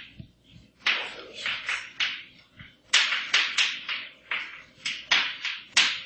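Chalk writing on a blackboard: quick, scratchy strokes and taps, several a second, pausing briefly near the start and again about halfway.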